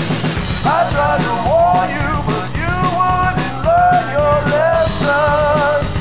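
Rock song with a drum kit and a singing voice. The vocal line holds long, wavering notes, most plainly in the last second or so.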